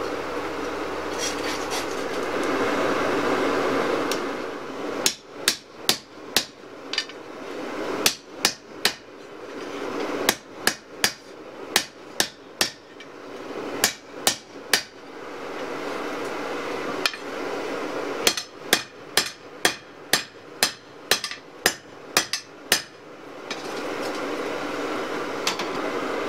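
Hand hammer striking hot steel on an anvil while forging a knife blank: three runs of sharp, ringing blows, a couple a second, with short pauses between. A steady rushing noise is heard at the start and again near the end.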